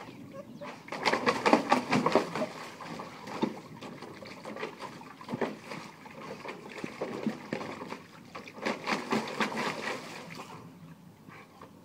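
A large dog splashing and pawing at the water in a small plastic wading pool. The splashes come in bursts: about a second in, again midway, and once more later on.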